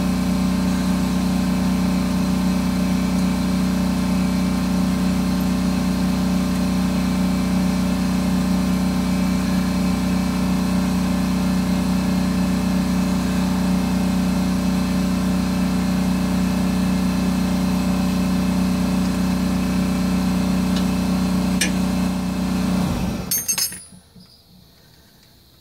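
Air compressor running with a steady hum, then shutting off abruptly near the end. It keeps cycling on and off because the compressor has a big leak.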